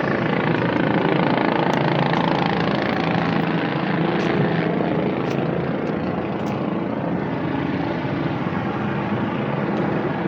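Helicopter overhead, a steady drone that runs unbroken.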